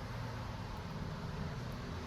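Steady background rumble and hiss.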